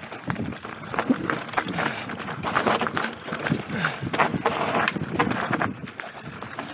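Mountain bike riding fast down a dirt singletrack: tyres rolling over the dirt, with frequent short knocks and rattles from the bike over bumps.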